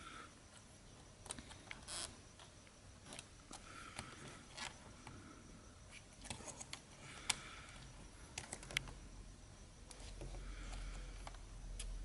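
Faint scattered clicks and small scrapes of fingers and a tool working at the plastic parts and Wi-Fi antenna connectors inside an opened Toshiba Satellite C55-C laptop, with one sharper click about seven seconds in.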